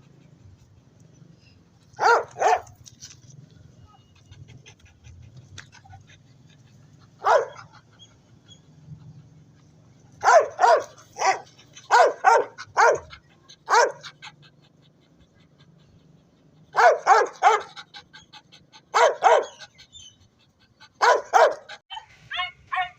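A dog barking in short clusters of two to four barks, with pauses of a few seconds between them.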